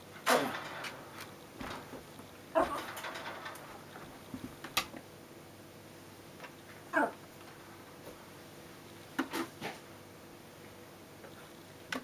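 Small dog making a few short whimpers, several of them quick downward-sliding whines spaced a couple of seconds apart, with a few light clicks between them.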